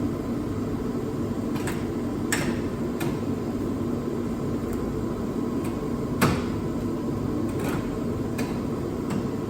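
Cut-down 4L60E automatic shifter from a 1997 Camaro, fitted in the Scout's original housing, being worked by hand. It gives a series of sharp metallic clicks and clunks, the loudest about six seconds in, over a steady low background hum.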